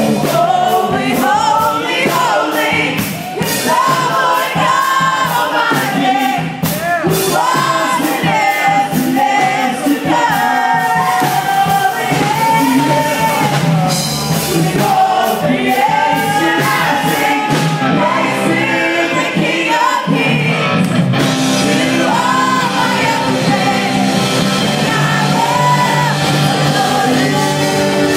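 Live worship band playing loud, with a lead singer singing a held, gliding melody into a microphone over a full drum kit and band.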